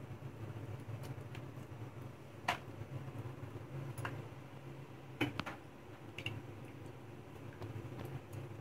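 A few faint, irregular clicks and soft squishes from fingers peeling the skins off boiled taro roots, over a steady low hum.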